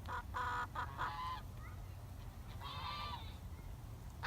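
Animal calls with a honking, goose-like sound: a quick run of calls in the first second and a half, then another about two and a half seconds in.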